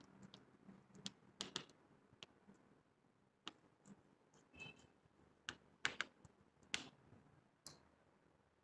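Near silence, broken by faint, irregularly spaced clicks and taps, a dozen or so, the most distinct around the middle and about six seconds in.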